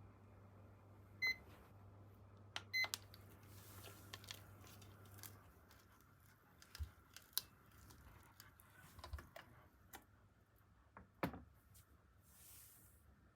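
A kitchen appliance beeping: one short electronic beep, then two more about a second and a half later, over a faint steady low hum that stops about five seconds in. Light clicks and taps of kitchen handling follow, with a sharper knock near the end.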